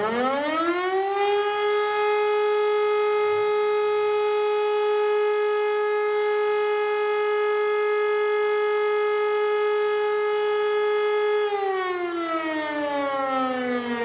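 E57 electric motor siren sounding the fire-brigade alarm. It winds up to full pitch over the first second or so, holds one steady tone for about ten seconds, then starts winding down about two seconds before the end.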